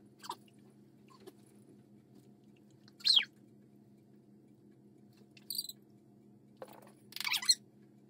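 Dog chewing a squeaky plush toy, setting off a few short squeaks: a loud one about three seconds in that falls quickly in pitch, a brief high one, and a rougher run of squeaks near the end, with a knock just before it.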